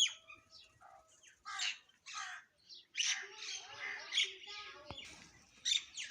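Mynas calling: a string of short, harsh squawks and chirps, one after another with brief gaps between them.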